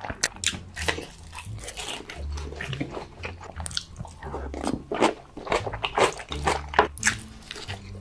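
Close-miked eating sounds: someone biting into and chewing crunchy food, with many sharp, irregular crunches.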